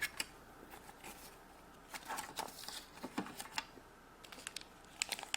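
Light scattered clicks and taps of plastic toy cash-register pieces and play money being handled and set down.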